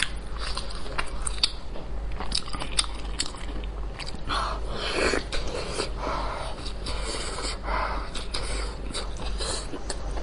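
A person biting into and chewing a large steamed bun filled with pickled long beans and meat, with many short mouth clicks.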